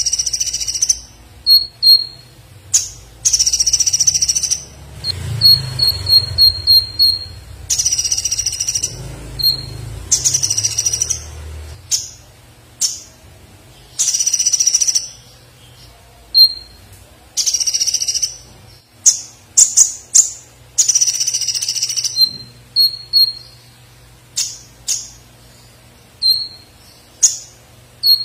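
Caged male purple-throated sunbird (kolibri ninja) singing hard: loud, high, piercing phrases about a second long alternate with quick trills of short notes and sharp chips, with brief pauses between. The song is filled out with learned woodpecker-call mimicry.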